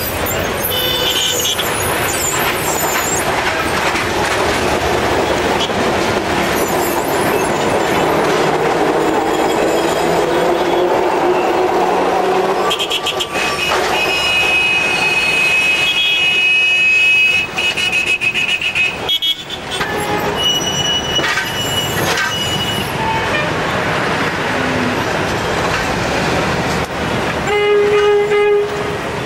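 Cairo electric trams running along street track amid city traffic noise. A high steady wheel or brake squeal lasts about four seconds midway, a shorter squeal follows a few seconds later, and a short horn blast sounds near the end.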